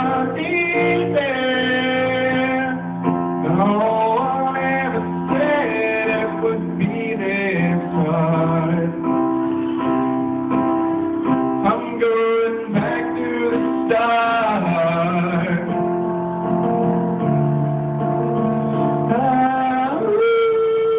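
A young man singing solo into a handheld microphone over a guitar accompaniment, amplified through stage speakers; his voice holds long, bending notes.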